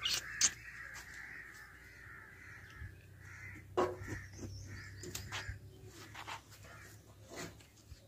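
Crows cawing repeatedly in the background. Scattered sharp clicks and knocks run through it, the loudest about four seconds in.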